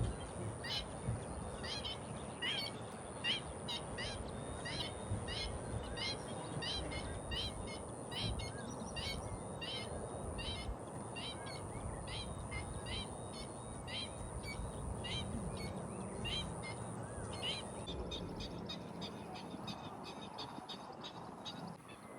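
A bird calling over and over in short sharp notes, about two a second, above a steady low rush of outdoor background noise. Near the end the single notes give way to fainter, quicker chirping.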